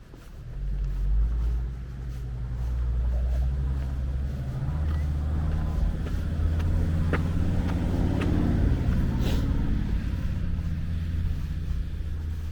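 Low, steady mechanical rumble of a running motor or vehicle, with an even hum that starts about half a second in and grows a little louder about four and a half seconds in, a few light clicks over it.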